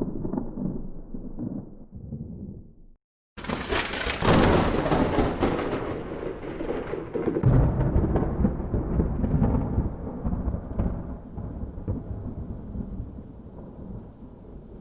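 Thunder: the last of a low rumble fades and cuts off, then a sharp, close lightning crack about three seconds in, with a second heavy low boom some four seconds later and a long rolling rumble that dies away.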